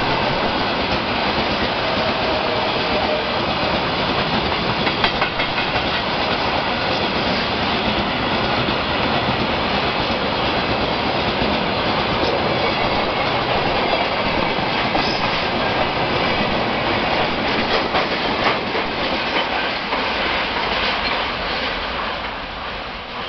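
Freight train of tank cars rolling past at speed, the wheels clacking steadily over the rail joints. The noise begins to fade in the last second or so as the train moves away.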